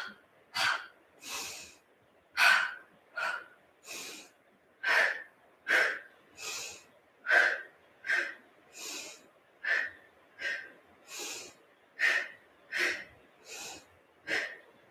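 A woman doing rhythmic Pilates breathing: two short, sharp exhales, then a softer, longer inhale. The cycle repeats evenly about every two and a half seconds, six times over.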